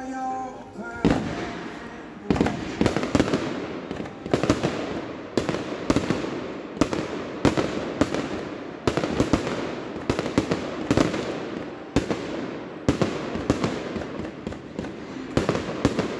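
Fireworks display: a rapid run of aerial shell bursts starting about a second in, a sharp bang every half second to a second, each trailing off in a short echo.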